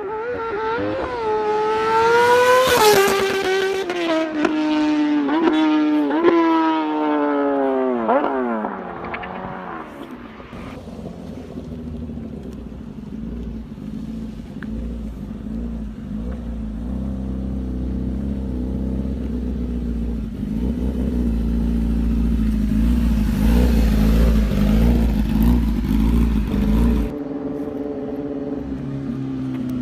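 Superbike engine accelerating hard, its note rising in short steps through several gear changes, then dropping in pitch as the bike passes and pulls away. A lower, steadier engine note with a deep rumble follows and cuts off abruptly near the end, where another engine note falls away.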